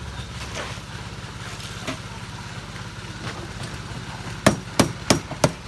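A machine engine drones steadily at a construction site during a concrete pour; about four and a half seconds in comes a run of four sharp hammer blows, roughly three a second.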